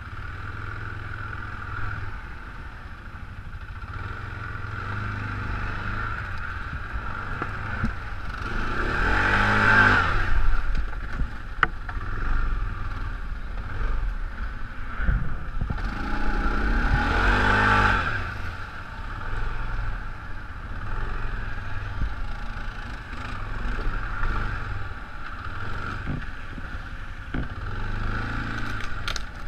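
Arctic Cat ATV engine running while the quad is ridden over a rough, muddy trail, revving up and easing off twice, about a third of the way in and again just past halfway, over a steady whine.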